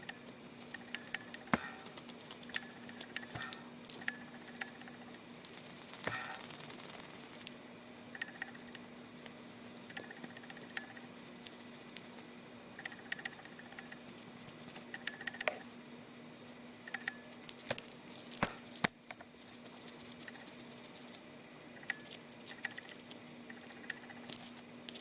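Light scattered clicks, taps and brief bouts of rubbing from hands cleaning a small plastic mobile phone, over a faint steady low hum.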